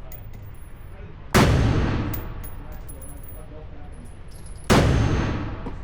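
Two gunshots about three seconds apart, each a sharp crack followed by a long echoing decay.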